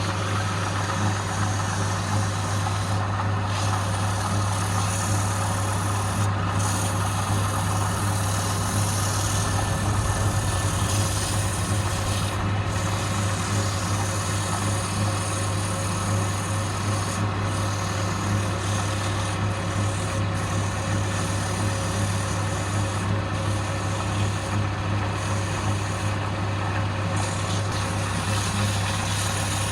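Wood lathe running steadily with a motor hum, under the scraping hiss of a turning tool cutting the spinning wood.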